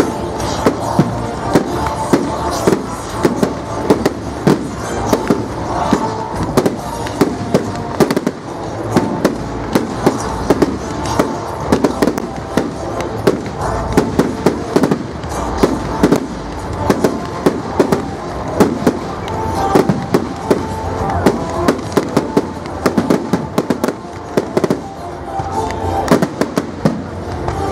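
Fireworks display: a rapid, continuous run of sharp bangs and crackling bursts, with music playing underneath.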